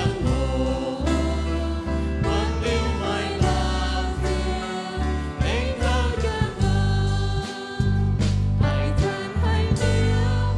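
A hymn sung in the Mien language by several voices, with sustained instrumental accompaniment and a steady low bass.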